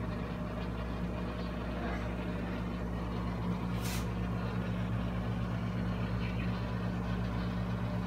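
A steady low mechanical hum, with a brief hiss about four seconds in.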